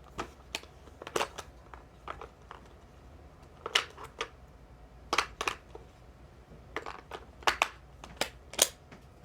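Irregular sharp clicks and rattles of small hard objects being handled, about a dozen spread unevenly, the loudest near the end.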